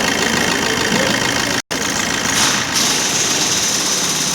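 Maruti Dzire 1.3-litre diesel engine idling roughly with a misfire; the stored fault code points to an open circuit on the number 1 injector. The sound cuts out for an instant about one and a half seconds in.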